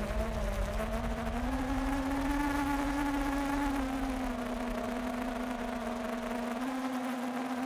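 FPV quadcopter's brushless motors and propellers buzzing steadily in flight, heard through the onboard camera; the pitch rises a little about two seconds in and eases back down after about four.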